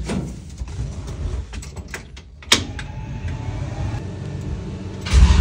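Someone climbing into the cab of an old truck, with rustling, knocks and one sharp knock about two and a half seconds in. Near the end the engine is cranked and starts.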